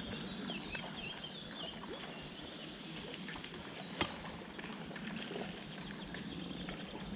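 Outdoor ambience: small bird chirps over a steady background hiss, with one sharp click about four seconds in.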